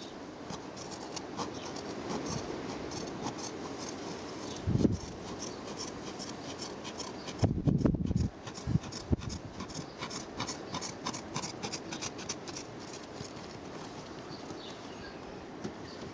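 Scissors snipping through a carbon-fibre seat heater pad: a long run of short crisp cuts with rustling of the pad's fabric, and a few dull thumps around the middle.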